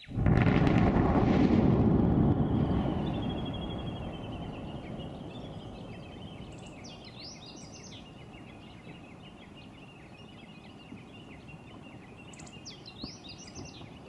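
A volcanic explosion from Popocatépetl: a sudden low rumbling blast, loudest for the first two seconds, then fading slowly over several more. Birds chirp a few times over a faint, steady high trill.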